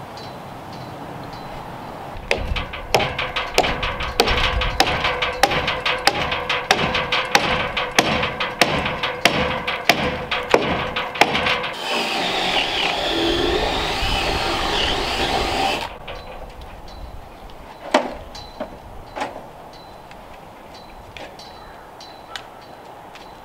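Cordless power tool working into timber: about ten seconds of regular sharp clacking, roughly three a second, over a steady motor hum, then about four seconds of continuous whirring that stops suddenly, followed by a couple of scattered knocks.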